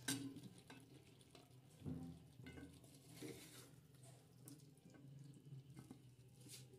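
Near silence with a few faint, light clinks and scrapes of a steel spoon against a metal kadai as cooked potato slices are scooped out.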